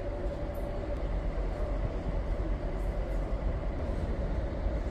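ST44 (M62-type) diesel locomotive running as it moves off, a steady low rumble from its two-stroke V12 diesel, with a faint steady whine that fades.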